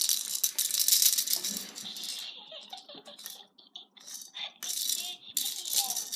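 Toy baby rattle shaken in quick, hissy bursts: a dense run for about two seconds, then shorter shakes with brief gaps.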